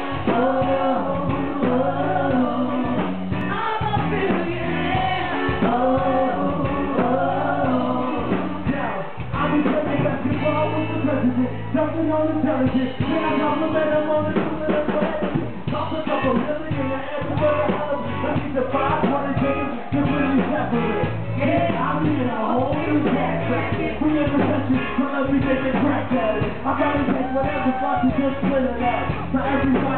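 Live band playing a rock song with a lead singer over a steady drum beat, heard from inside the crowd at a club. The recording is dull, with its high end cut off.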